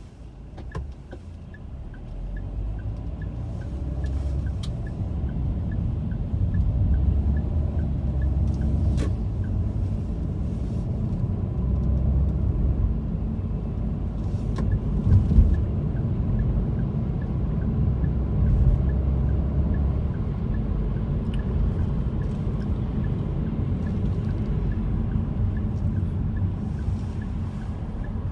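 A car driving: low engine and road rumble that swells over the first few seconds as the car pulls away, then runs steadily.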